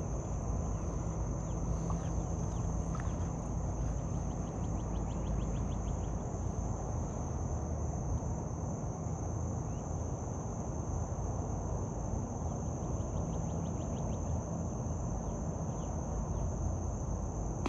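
A steady high-pitched insect chorus over low wind and water noise, with faint rapid trilling ticks twice.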